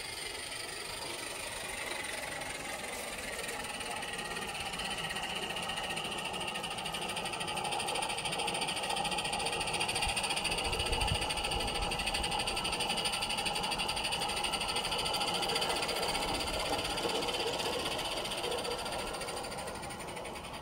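Gauge One live-steam locomotive running past with its train: a rapid, even mechanical beat with wheels on the rails, growing louder as it comes close about ten seconds in and fading near the end.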